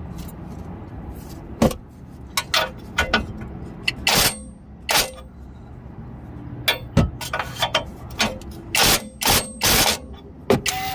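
A wrench on a tie rod end's castle nut, giving a string of irregular sharp metallic clicks and clinks, a few of them ringing, as the nut is turned a little further to line its slot up with the cotter pin hole.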